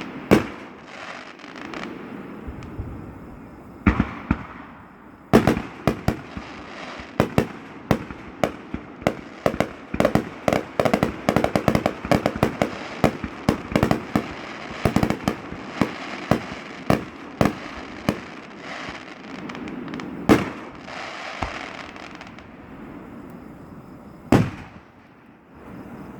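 Fireworks display: a long run of sharp bangs from bursting shells over a steady crackle, coming thick and fast through the middle. The barrage thins to a few single loud booms towards the end.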